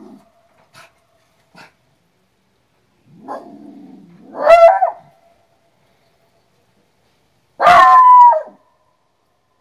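Small shaggy white dog barking: a low grumble rises into a sharp bark about four and a half seconds in, then a longer bark that drops in pitch at its end comes near eight seconds.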